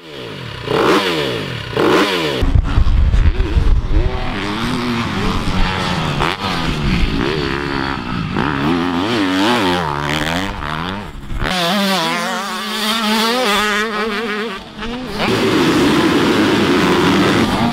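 Dirt bike engines revving, the pitch climbing and falling again and again with the throttle, with a few sudden changes in sound. Near the end several bikes rev together at once, as at a starting gate.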